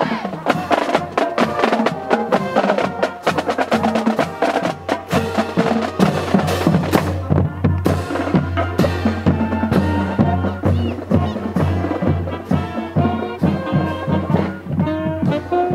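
Marching band playing as it passes, its drum line of bass drums and cymbals beating steadily. Toward the end wind instruments come through more clearly, with notes stepping upward.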